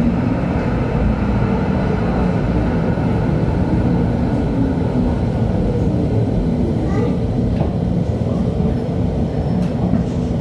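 LHB TW2000 light-rail car under way, with a steady hum from its drive and the rumble of its wheels on the rails. A few faint squeaks come near the end.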